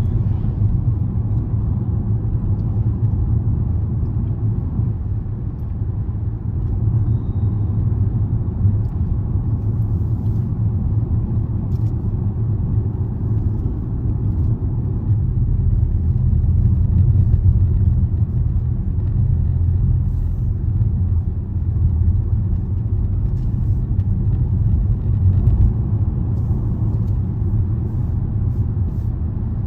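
Steady low rumble of road and engine noise inside a Range Rover's cabin as it is driven along.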